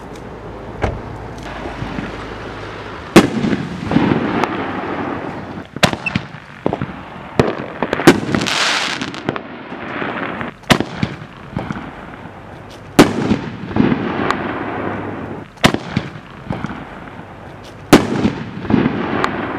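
HoneyBoom Detonator 18 canister firework shells launching from their tubes and bursting overhead: a string of sharp bangs, one every one to three seconds, each followed by a rolling echo. A hissing rush comes about eight seconds in.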